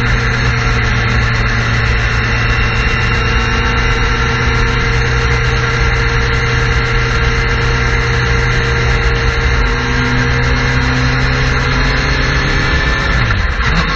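Suzuki GSX-R sport bike's inline-four engine holding a steady note while cruising at highway speed, with heavy wind and road noise. Near the end the engine note falls, then picks up again at a higher pitch.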